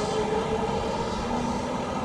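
Toei 5300 series electric train accelerating out of the station: its traction motors and inverter give a steady whine over the rumble of wheels on rails, shifting to a lower tone about a second in.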